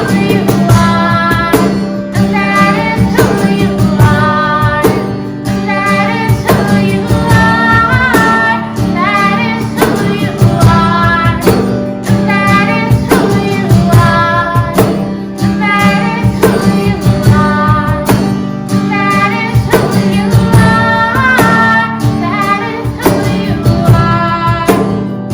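Worship band playing a song with a woman singing lead over instruments and a steady beat.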